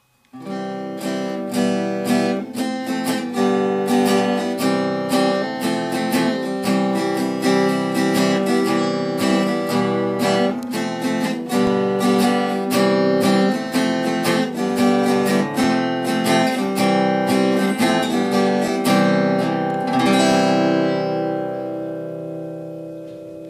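Acoustic guitar music, a steady run of strummed and picked notes, ending on a chord that rings out and fades over the last few seconds.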